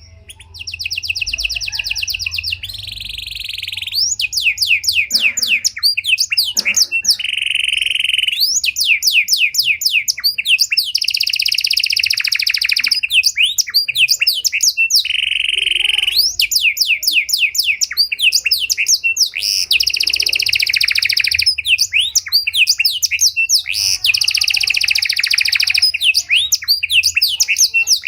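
Domestic canary of the panda (pied) variety singing a long, varied song: fast runs of repeated sweeping notes alternating with held, buzzy rolls, starting about half a second in and continuing with only brief pauses.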